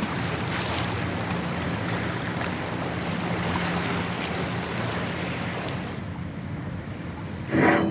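Steady rush of wind and sea on the deck of a ship at sea, with a faint, steady low hum beneath it. A brief, louder sound rises out of it near the end.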